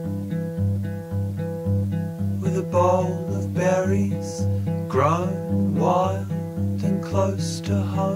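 Acoustic guitar music: a steady plucked pattern of about two notes a second, with gliding, swooping high notes laid over it from a few seconds in.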